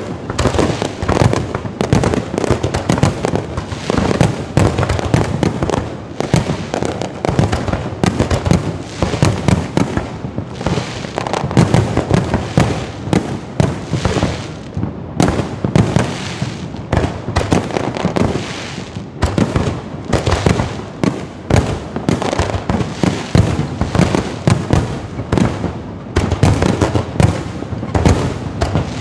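Firecrackers going off in a rapid, irregular string of loud bangs, many each second, without a break.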